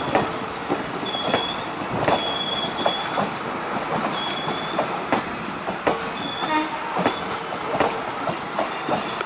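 Passenger train coaches rolling past, their wheels clattering over rail joints with irregular clicks and brief high-pitched wheel squeals that come and go.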